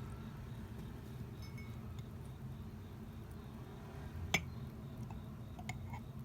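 A single sharp clink of glass tableware about four seconds in, with a few faint ticks after, over a steady low rumble of traffic coming in through an open window.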